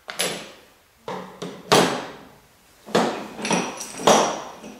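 A quick series of sharp metal knocks and clanks, about nine in under five seconds, some ringing briefly. They come from tools and parts striking a steel crankshaft and its bolted counterweights as they are dismantled.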